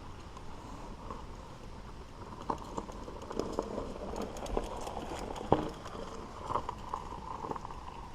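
Mountain bike riding over a rough dirt trail: tyre noise with the bike rattling and knocking over bumps, busiest in the middle, with one sharp knock about five and a half seconds in.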